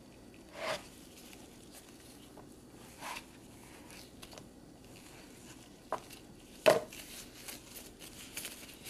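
A few short knocks and scrapes of a plastic spatula against a plastic mixing bowl as stiff cookie dough is scooped out, the loudest a little before the end. Near the end, light crinkling from disposable plastic gloves as the dough is rolled into a ball.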